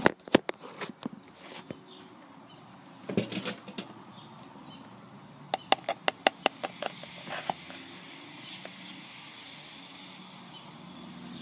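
A metal spoon clicks and taps against a plastic cup as baking soda is added, with a quick run of taps about halfway through. Then comes a steady, soft, high hiss: the baking soda fizzing as it reacts with vinegar.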